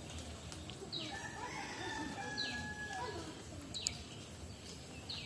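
Birds calling: a short high note that falls in pitch repeats about every second and a half, and a longer, lower wavering call comes in about a second in and lasts roughly two seconds.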